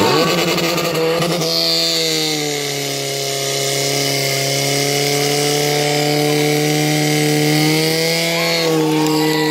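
Portable fire pump's petrol engine revving up and held at a high, steady pitch under full load while it drives water through the hoses, its pitch dipping slightly near the end.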